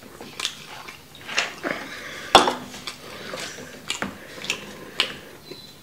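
Close-up eating and tableware sounds: scattered clicks and clinks as food, plates and a soda can are handled, with one sharp knock on the table a little over two seconds in.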